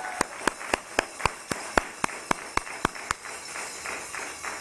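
Audience clapping in a steady rhythm, about four claps a second, fading away over the last second or so.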